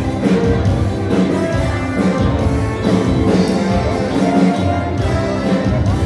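Loud dance music with a steady beat and bass line, playing for couples dancing.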